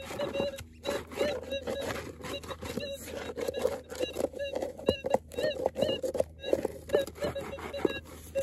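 Gold-prospecting metal detector's steady threshold hum with frequent warbling, rising-and-falling signal responses as its small coil is swept over the dirt at the bottom of a dig hole. Repeated scrapes and knocks come from the coil and gloved hand working against dirt and rocks.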